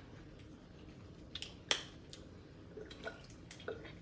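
Snow crab leg shells cracking and snapping as they are broken open by hand: a few short, sharp cracks, the loudest just under two seconds in, with softer clicks and handling sounds in between.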